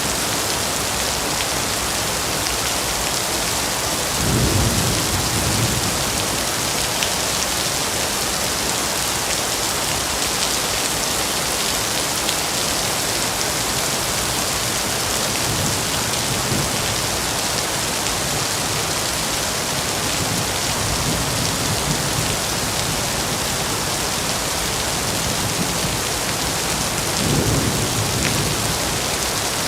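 Heavy, steady rain falling in a forest, an even dense hiss. Two brief low rumbles rise under it, about four seconds in and again near the end.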